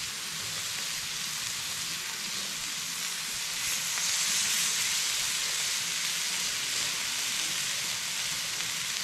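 Marinated chicken wings sizzling on a hot grill over fire-pit coals: a steady hiss that swells louder about four seconds in, as another wing is laid on the grill.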